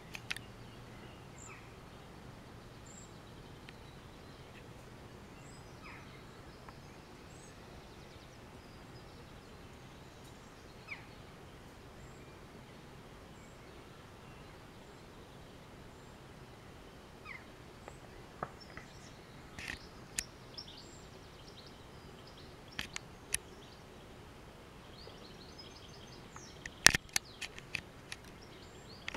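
Faint low hum of a distant helicopter, fading away over the first dozen seconds, under steady outdoor background noise with scattered short bird chirps. A quick run of sharp clicks near the end.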